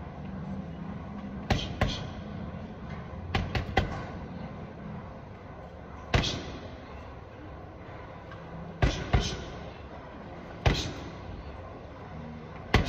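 Boxing gloves punching a hanging heavy bag: about ten sharp thuds in short combinations of one to three punches, each ringing briefly in the large hall.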